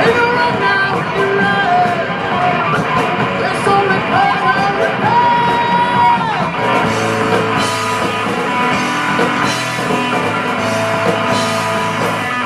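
Rock band playing, with a voice singing over guitar; the music gets fuller about halfway through.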